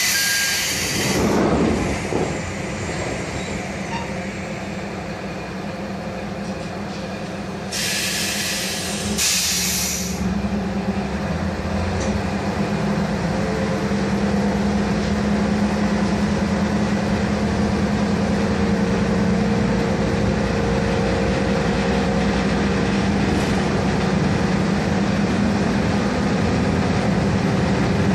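Inside a KiHa 0 series diesel railcar: sharp hisses of compressed air near the start and twice about eight to ten seconds in. Then the underfloor diesel engine's steady drone swells and holds as the car gets under way and gathers speed.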